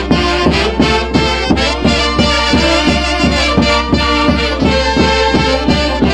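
Live Peruvian orquesta music from the Huancayo region: horns playing a melody over a quick, steady beat of about three to four strokes a second.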